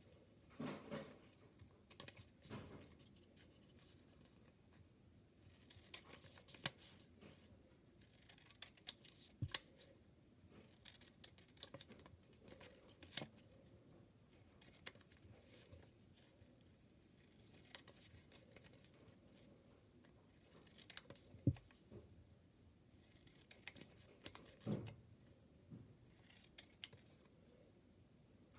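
Scissors snipping, a series of separate faint cuts at irregular intervals.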